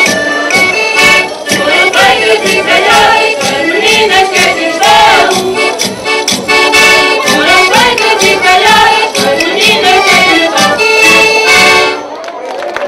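Portuguese folk-dance music: an accordion plays a lively tune over a steady percussion beat, with voices singing along. The music stops suddenly about a second before the end.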